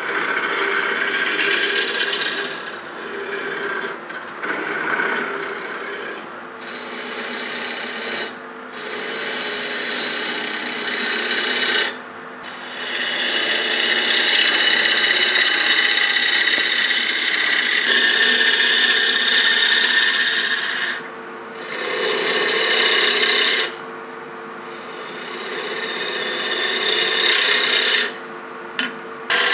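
Wooden bowl being worked on a turning lathe: a tool scraping and cutting the spinning wood with a steady rasping hiss, in long stretches broken by several brief pauses.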